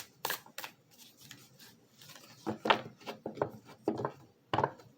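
Tarot cards being handled: a few quick rustles and taps, then a run of louder rustling and snapping of cards in the second half.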